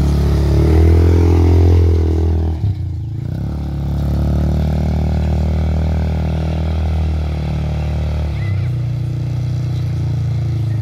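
Quad bike (ATV) petrol engine running under throttle while being ridden off-road. It rises in pitch about a second in, breaks off briefly near three seconds, then runs on steadily and changes pitch again near the end.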